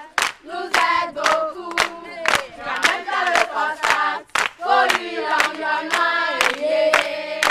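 Group of children singing together in French, clapping their hands in a steady rhythm.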